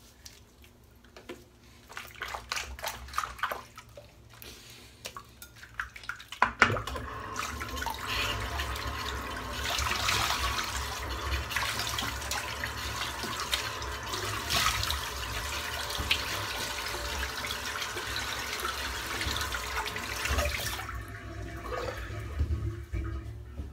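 A few soft clicks and taps, then a bathroom tap is turned on about six seconds in and water runs steadily into the sink for about fourteen seconds before it is turned off.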